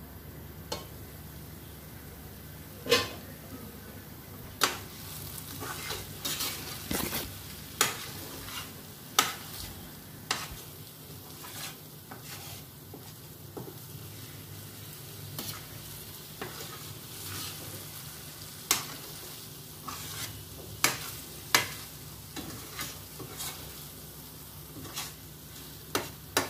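A spoon stirring and scraping thick egg-roast masala in a pan on a low flame, with sharp knocks and scrapes against the pan every second or two over a low sizzle of frying. The stirring keeps the masala from catching and burning on the bottom. A steady low hum runs underneath.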